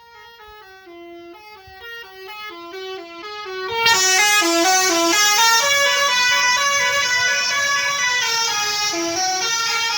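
Basuri telolet bus horn playing a tune of quick stepped notes. It swells, then jumps much louder about four seconds in, with a rush of noise under it.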